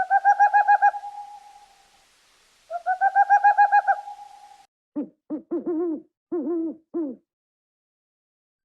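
Owl calling: two rapid trilled hoots, each one to two seconds long, then a quick series of short yelping calls about five seconds in.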